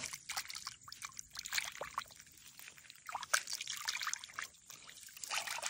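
Hands being washed in pond water: a run of small, irregular splashes and trickles as water is scooped and dribbles off the hands.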